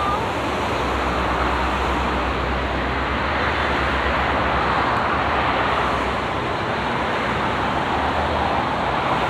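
Steady traffic noise from cars and trucks on a multi-lane toll road: a continuous rush of tyres and engines that swells gently as vehicles pass.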